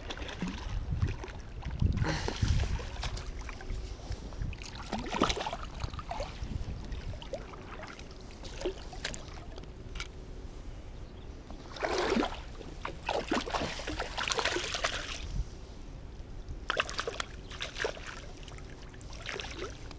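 Irregular splashing and sloshing of water at the bank's edge as a hooked European sea bass is played in and scooped with a landing net, with knocks from handling the rod, reel and net.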